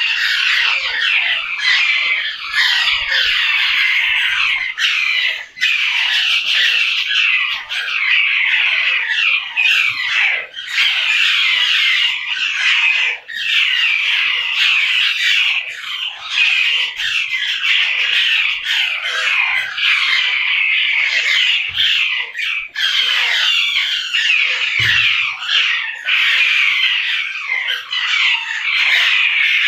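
Many parrots calling at once: a dense, continuous chorus of overlapping squawks and chirps, most of them short notes falling in pitch.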